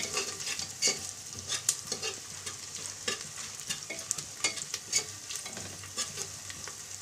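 Sliced onions and whole spices frying in oil and ghee in an aluminium pressure cooker, sizzling steadily, while a spoon stirs them, scraping and clicking against the pot's sides at irregular moments.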